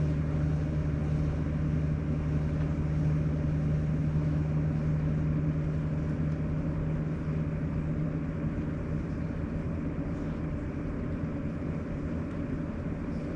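Sharp AY-J40S-W air conditioner making a steady low drone, a deep hum with several other pitched tones over it, easing slightly in the second half. It is the abnormal noise the unit has made since new, still there after a repair for a frequency-related fault.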